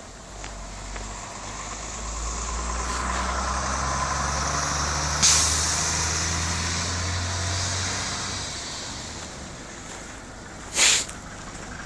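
A large road vehicle driving past, its engine swelling over several seconds and then fading away, with a short, sharp hiss about five seconds in and another near the end.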